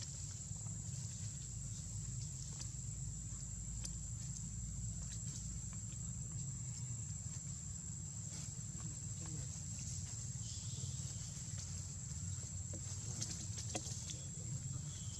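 Forest ambience: a steady high-pitched insect drone over a low rumble, with scattered faint clicks and rustles.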